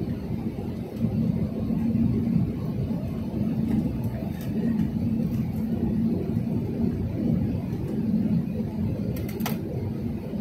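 Airliner cabin noise: a steady low rumble of engines and rushing air, with a faint hum, heard inside the cabin. A short click sounds near the end.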